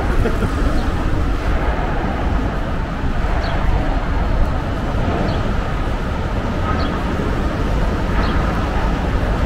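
Steady street noise of city traffic, dense and weighted to the low end, with a faint short high chirp repeating about every second and a half.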